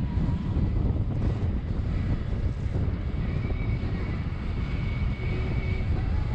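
Steady low rumble of wind buffeting the microphone, with a faint thin high tone in the middle.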